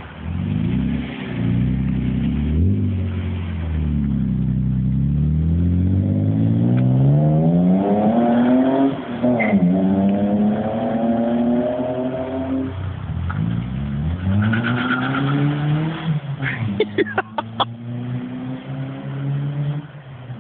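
BMW E36 328i straight-six with an Eisenmann rear silencer, its exhaust note climbing steadily in pitch over several seconds, dropping sharply and climbing again, three times in all as the engine is revved or pulls through the gears. A few sharp cracks come a little after the last climb.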